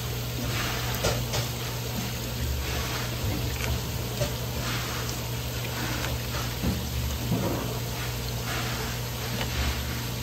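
A fish-skinning machine's motor hums steadily while a nozzle sprays a jet of water over it, with a few soft wet knocks as mullet fillets are pressed across the board.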